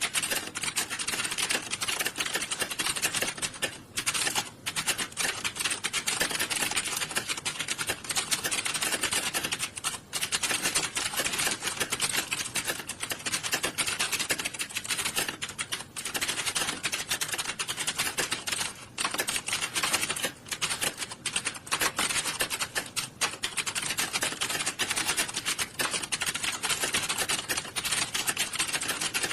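Many computer keyboards being typed on at once in an exam hall, a dense, continuous clatter of keystrokes with a few brief lulls.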